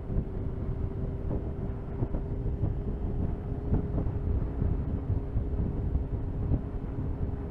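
Suzuki GSX-R sport bike's engine running at a steady cruise, with wind and road rumble on the microphone. A second, lower steady tone joins about halfway through.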